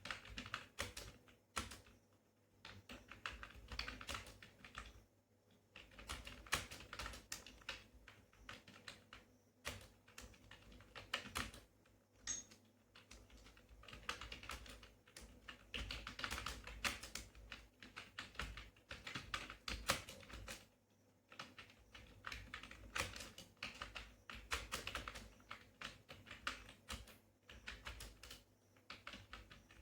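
Computer keyboard being typed on fast: runs of rapid keystroke clicks broken by brief pauses every few seconds.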